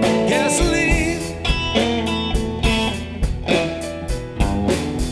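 Three-piece blues band playing: the singer holds the last word of a line, "gasoline", then guitar and drums carry on with a steady beat.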